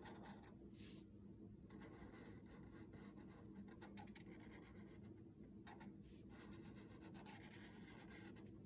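Faint scratching of a Sharpie felt-tip marker drawing strokes on paper, in short stretches that start and stop, over a low steady hum.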